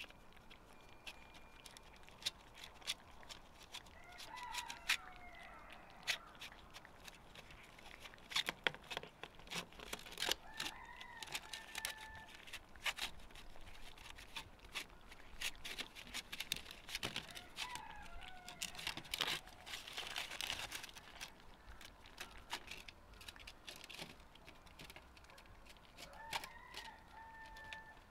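Cats eating from an aluminium foil tray: a continuous run of faint clicks, chewing and lapping, with the tray ticking under their mouths. A rooster crows four times in the background, a few seconds apart.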